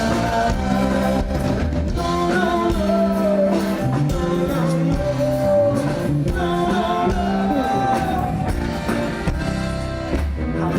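Live rock band playing a song, with drums, bass and guitar under a melody line.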